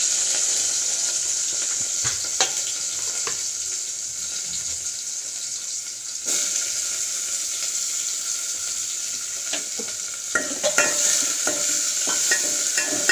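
Chopped onions sizzling steadily in hot oil in a metal pot. A spoon clicks and scrapes against the pot as they are stirred, the clinks coming thick in the last few seconds.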